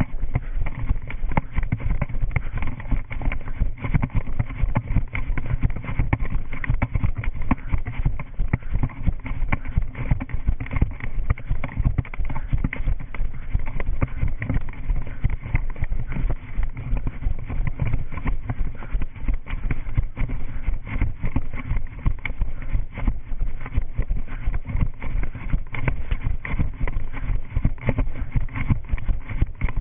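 Running footsteps on concrete in a quick, steady rhythm, picked up by a body-worn GoPro that jolts with every stride.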